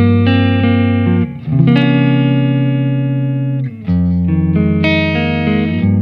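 SQOE SETL960 HH electric guitar with humbucking pickups, played through an amplifier in a sound test. It plays short chords and notes, then lets one chord ring for about two seconds in the middle before moving on.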